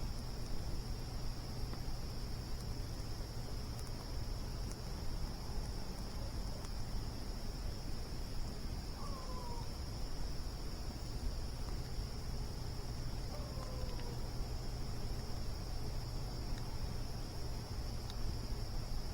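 Crickets chirping in a steady, unbroken high trill over a low rumbling background, with a few faint ticks. Twice, about nine and thirteen seconds in, there is a short falling call.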